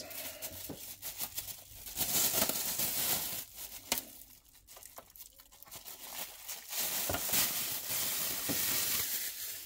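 Clear plastic bag crinkling and rustling as thin plastic panels are slid out of it, with a few light clicks. The rustling comes in two louder stretches, about two seconds in and again near the end, with a quieter spell between.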